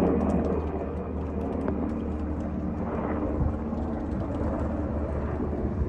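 Helicopter flying overhead, a steady low drone of engine and rotor.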